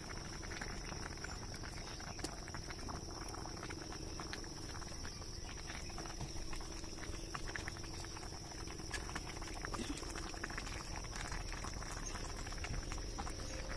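Water simmering in an iron wok over an open wood fire, with scattered small crackles and pops, under a steady high insect drone.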